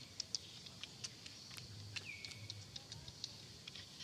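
Faint woodland ambience: scattered short high chirps and ticks, and about two seconds in one call that drops in pitch and then holds steady.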